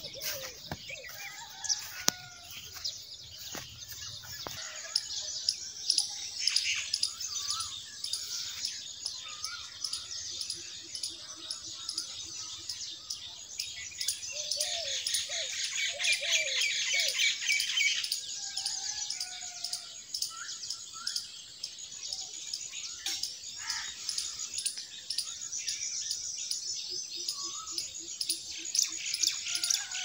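A chorus of many small birds chirping and calling at once, in a mix of short chirps and whistled notes. About halfway through, a dense, rapid chattering rises over the rest for a few seconds.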